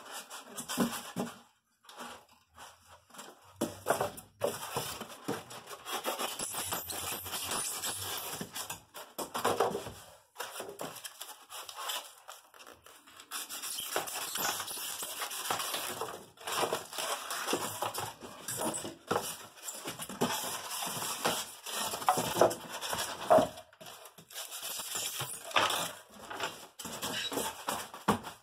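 Polystyrene foam packing insert being cut and broken with a utility knife: irregular scraping and crunching strokes with short pauses.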